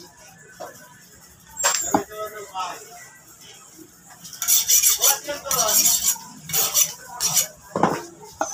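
Butcher's cleaver chopping pork on a round wooden chopping block: one chop about two seconds in, then a quick run of chops from about four and a half seconds to near the end.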